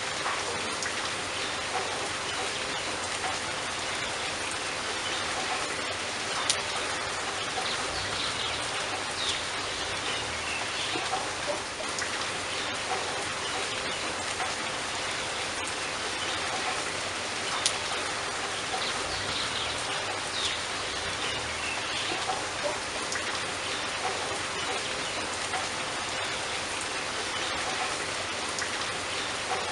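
Steady rain falling, with louder individual drops ticking now and then.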